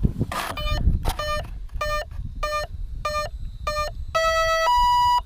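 Electric speed controller of an RC plane beeping through the brushless motor as the battery is connected: six short beeps about 0.6 s apart, then a longer low tone stepping up to a higher one, the sign that the ESC is powered up and armed.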